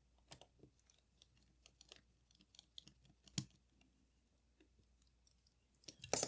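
Small scattered clicks and taps of hand tools against the metal parts of a Leica IIIF camera being taken apart, with one sharper click about three and a half seconds in and a quick cluster of clicks near the end.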